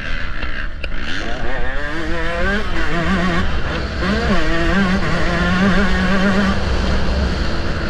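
Motocross dirt bike engine accelerating hard, its pitch climbing in steps as it shifts up through the gears, then running steady at high revs.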